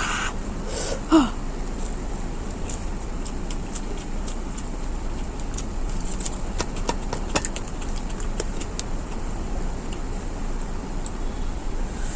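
Person eating: scattered small mouth and chewing clicks over a steady low background hum.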